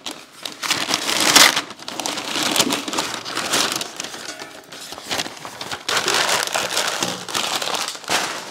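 Brown packing paper crinkling and rustling in repeated bursts as it is pulled from a shipping box, the loudest burst about one and a half seconds in.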